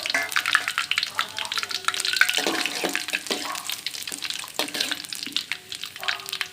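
Whole spices, cinnamon, cloves, cardamom, bay leaf and fennel seeds, sizzling in hot oil in a kadai, with a steady hiss and many irregular sharp crackles and pops.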